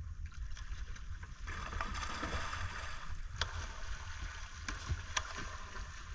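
Water lapping and splashing around a small outrigger boat on calm sea: a steady hiss with a few sharp slaps, over a constant low rumble.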